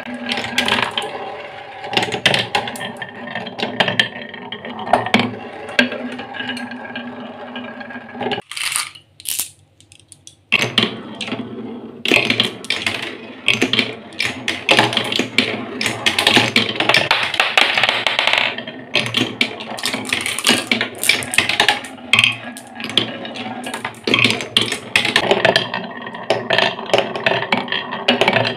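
Glass marbles rolling along wooden marble-run tracks (a plywood spiral, a curved wooden rail and a HABA wavy slope), a continuous rolling rumble full of clicks as they knock against the wood and each other. The sound drops away briefly about eight seconds in, then the rolling and clatter resume with several marbles at once.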